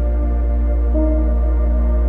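Slow ambient background music: long held notes over a deep steady drone, with a new chord coming in about a second in.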